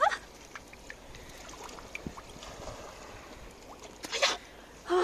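Shallow water trickling and sloshing, with small scattered clicks and a short rush of water noise about four seconds in.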